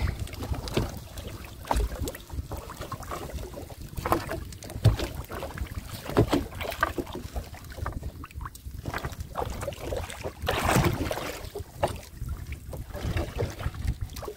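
Water splashing and knocking around a small boat, in irregular strokes, with wind rumbling on the microphone; a longer rush of water about eleven seconds in.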